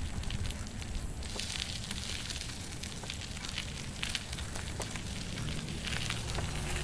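Noise of a moving bicycle: wind rumbling on the microphone, with irregular crackles and clicks from the tyres on the road and the rattling bike. A steady low hum joins about five and a half seconds in.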